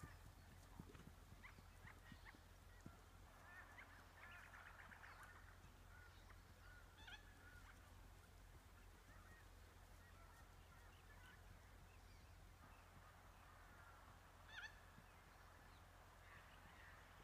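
Faint bird calls in near silence: scattered short chirps and squawks, with one louder call near the end, over a low steady hum.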